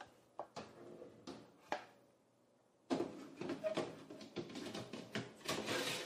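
A Cuisinart toaster oven broiler's door being opened and a metal baking tray slid onto its wire rack. A few light clicks come first, then after a short hush, about three seconds in, a denser run of metal knocks and scraping.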